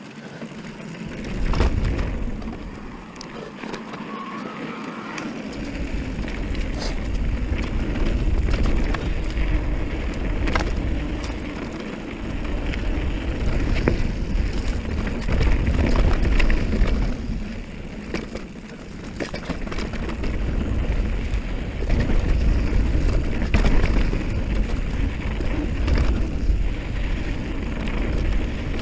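Mountain bike descending a dirt singletrack at speed: wind rumbling over the action camera's microphone, tyre noise on dirt, and the bike rattling and clacking over bumps. It starts quieter and the wind rumble builds about two seconds in, easing briefly twice later on.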